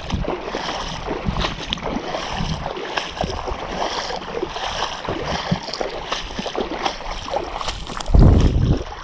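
Shallow seawater sloshing and splashing around a wader's legs while walking, with many small splashes. Near the end comes a loud low buffet on the microphone.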